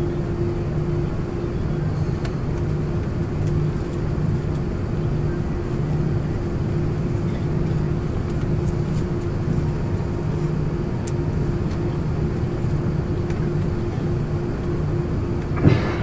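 Cabin noise of an Airbus A340-300 on the ground with its CFM56 engines at idle: a steady low hum with a constant tone, heard inside the passenger cabin. A short, sharp sound comes near the end.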